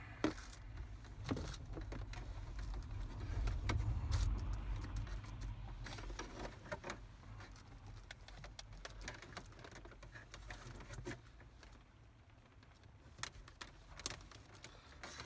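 Scattered small clicks and rattles of cable plugs and plastic trim being handled and plugged in behind a car radio, over a low rumble that swells about three to five seconds in.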